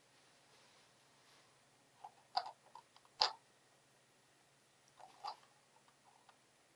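A small circuit board being handled and set down on a wooden tabletop: a few light clicks and taps, the sharpest about three seconds in, then two more near the five-second mark.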